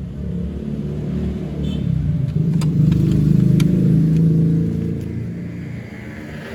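Low engine rumble of a motor vehicle, swelling to its loudest in the middle and then easing off, with a few light clicks.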